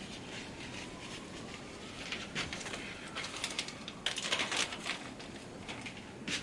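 Paper towel wetted with isopropyl alcohol being rubbed over a metal CPU heatsink to wipe off thermal paste: irregular scrubbing strokes, loudest about four seconds in, with one short sharp stroke near the end.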